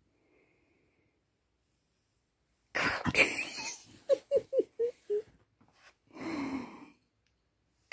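A dog lying on its side making wheezy play noises: a sudden huff about three seconds in, then a run of five or six short moaning yips, and a longer rough grumble near the end.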